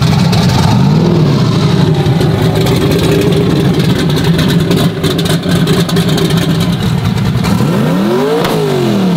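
1969 Camaro's twin-turbo 408 stroker V8 running loud on open headers, idling lumpily with a short blip about a second in and a sharp rev up and back down near the end.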